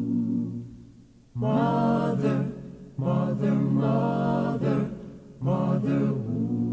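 Recorded song with layered, choir-like voices singing in three phrases over a steady low held tone, in the chanted refrain of a dub-poetry track.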